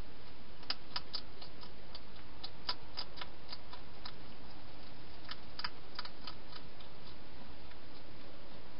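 Wild hedgehog eating from a bowl inside a plastic feeding box: irregular clusters of sharp clicks over a steady hiss.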